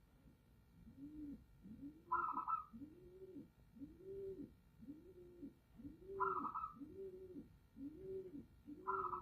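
Zebra doves (perkutut) cooing: a steady run of low, rounded coo notes about one per second, with a short higher call breaking in three times.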